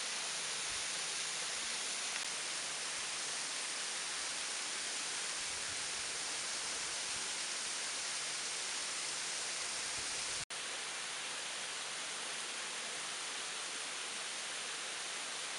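Waterfall's falling water rushing in a steady hiss, cut off for an instant about ten seconds in.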